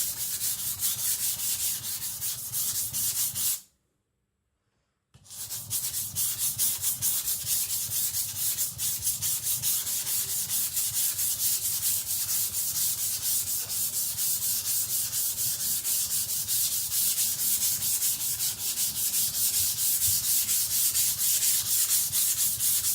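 Steel cleaver blade being ground back and forth on a wet Shapton Glass 220 whetstone under heavy pressure, a fast, steady, rhythmic scraping. The coarse stone is thinning the blade's wide bevel and removing metal. The scraping stops for about a second and a half around four seconds in, then resumes.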